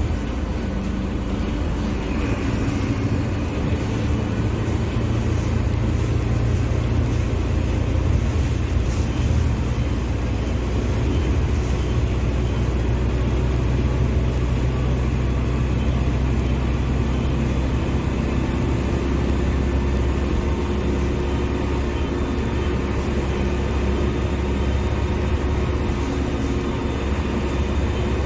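Mercedes-Benz OF-1721 BlueTec 5 bus diesel engine running steadily, with the engine note dropping to a lower pitch about two-thirds of the way through.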